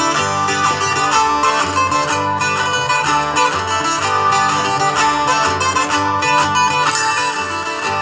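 Live folk band playing an instrumental passage: plucked guitars over a rhythmic bass line.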